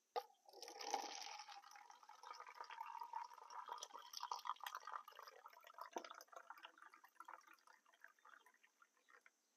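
Coffee poured from a stainless-steel French press into a paper cup: a steady trickle whose pitch rises slightly as the cup fills, tapering off near the end. A small click comes just before the pour.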